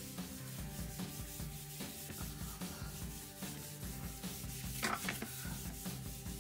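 Cloth rubbing back and forth over a varnished wooden tabletop, wiping in oil to lift a white water stain from the finish, in quick repeated strokes. A louder, sharper rub stands out about five seconds in, over faint background music.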